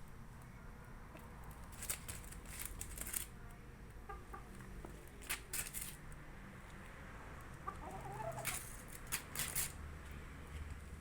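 Chickens clucking a few times, quietly, with several short, sharp clicks or scrapes in between.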